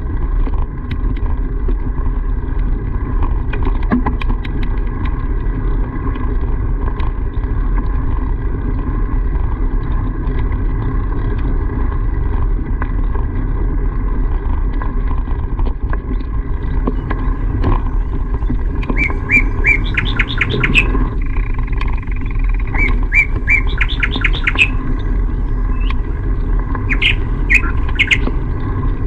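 A steady low rumble throughout. In the second half, a bird sings three bursts of rapid, repeated high chirps.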